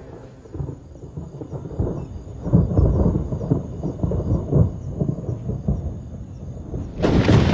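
Thunder rumbling and crackling in a storm, then a sudden loud thunderclap near the end.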